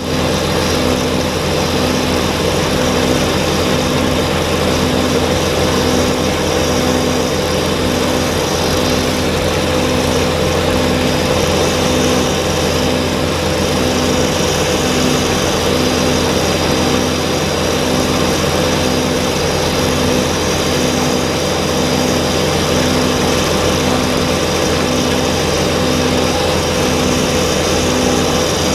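Kubota BX23S compact tractor's three-cylinder diesel engine running steadily under load, driving a front-mounted snowblower, with a faint regular pulse about once a second.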